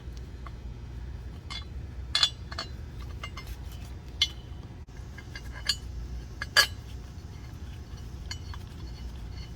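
Steel bolts clinking against metal as they are handled and set into the A/C compressor bracket: a series of sharp, scattered clinks, the loudest about two and six and a half seconds in, over a steady low hum.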